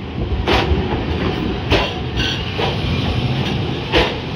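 Toyohashi streetcar rolling slowly past at close range: a steady low rumble with four sharp clunks from the wheels crossing rail joints, the loudest near the end.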